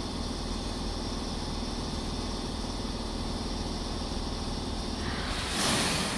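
Hokuso Railway 7300 series electric train standing at the platform, its onboard equipment humming steadily. About five seconds in comes a short, louder hiss of compressed air: the brakes releasing just before the train pulls away.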